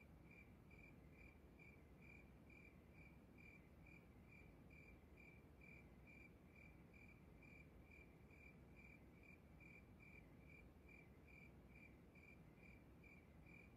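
Crickets chirping faintly and steadily, about four chirps a second.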